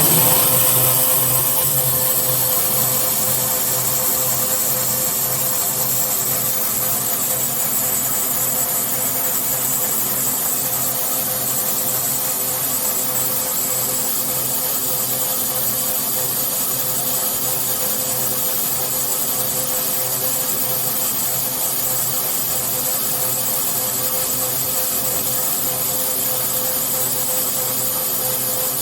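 Wirex CZP-2 twin-band vertical log band saw running steadily, its two 4 kW cutting heads driving the band blades as it saws wood, a constant mechanical hum and whine with a high hiss.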